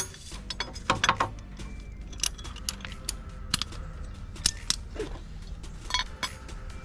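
Metal hand tools clinking and clicking against engine parts in irregular knocks while an alternator mounting bolt with stripped threads is worked loose.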